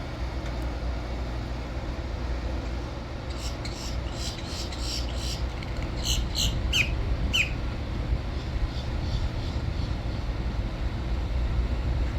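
Birds calling: a flurry of short, high chirps and squawks in the middle, ending with two falling calls, over a steady low rumble.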